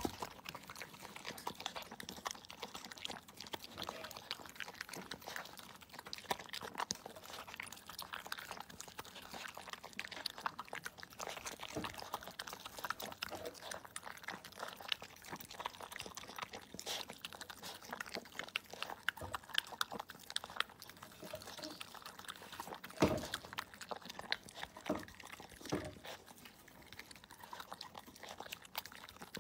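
Corgi puppy eating dry kibble from a bowl: a steady run of small crisp crunches and clicks as the pieces are bitten and knocked about. One louder knock comes about three-quarters of the way through.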